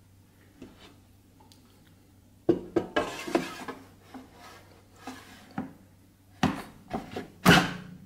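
Plastic basket drawer of a Power XL air fryer being handled and slid into the unit: a run of knocks and scrapes starting a little before halfway, and a louder clunk near the end as it seats. A faint steady low hum sits underneath.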